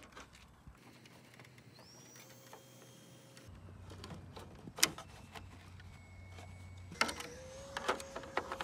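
Faint handling clicks and taps as the battery is connected inside a small RC airplane's plastic fuselage and the battery hatch is pressed shut. There is one sharp snap a little past halfway and a quick cluster of clicks near the end.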